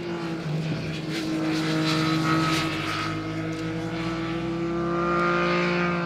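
Triumph Speed Triple RS's 1050 cc three-cylinder engine running on track through its Arrow exhaust, holding a fairly steady note. The pitch drops and settles about half a second in, and the loudness swells and eases gently after that.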